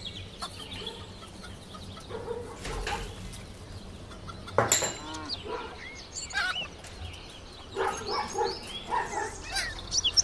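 Chickens clucking in short, scattered calls, with one short thump about four and a half seconds in.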